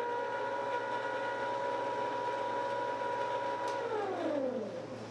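Electric motor of an Ss Brewtech grain mill running steadily with a humming whine, with no grain in it. A little under four seconds in, the power is cut and the motor winds down, its pitch falling until it stops.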